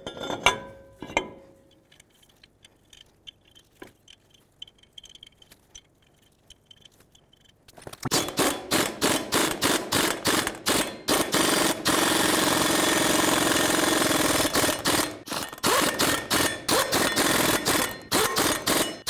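Pneumatic impact wrench running the hub extension nuts down onto the front hub studs of a Ford F-350 Super Duty dually. It starts about eight seconds in and hammers in short bursts, with one unbroken run of about three seconds in the middle. Before it come a few light metallic clinks as the hub extension goes on over the studs.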